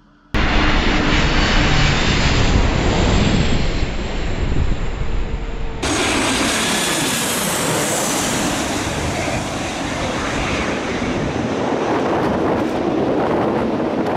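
Jet airliner engines running loud at close range as aircraft pass low overhead. The sound starts suddenly just after the start and changes abruptly about six seconds in. After that change, a Boeing 737 on final approach passes overhead with a steady roar and a high engine whine.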